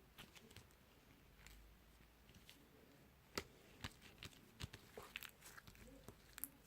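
Slime being played with, making faint, scattered sticky pops and clicks; the loudest pop comes a little over three seconds in.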